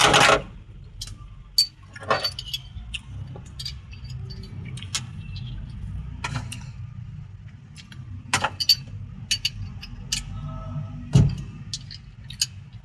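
Metal hand tools clinking and tapping against metal at irregular intervals, over an engine running steadily underneath. It opens with a loud metal clank, and another heavy knock comes near the end.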